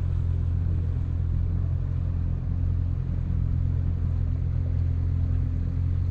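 Outboard motor running steadily with an even low drone as the skiff moves along, with water and wind noise around it.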